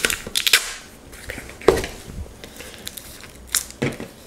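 Cardboard and plastic packaging being handled: a few short crinkles, rustles and scrapes. The loudest comes just after the start and another about halfway through.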